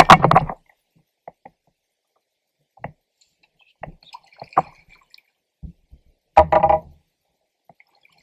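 Water splashing and dripping at a kayak, with scattered small knocks and drips and two louder splashy bursts, one at the very start and one about six and a half seconds in.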